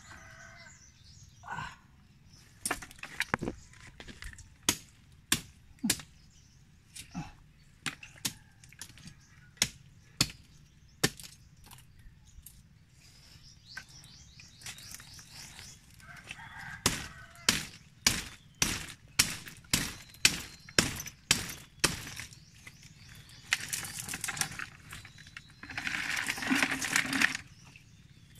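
Hard, sharp knocks of a tool striking and chipping oysters off rock, one to two strikes a second in two runs, then a longer rough noise near the end.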